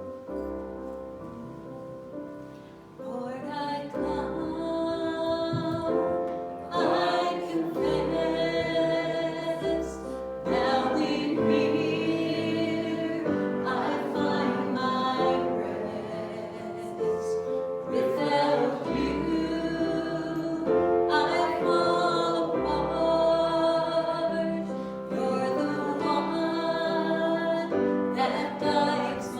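A congregation singing a slow hymn together with piano accompaniment, in phrases of a few seconds each.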